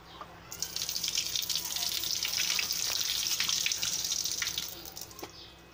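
Hot soaking water being poured off a pot of soya chunks past a steel plate held over the rim, splashing down into a sink. The pour starts about half a second in, runs steadily and tapers off near the end, with a light knock just before it stops.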